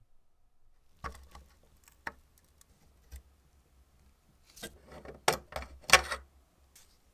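Pliers working the headlight tabs on the sheet-metal body of a 1920s American Flyer 1218 electric locomotive as the headlight is pried loose: three sharp metallic clicks about a second apart, then a quicker run of clicks and scrapes, the loudest about six seconds in.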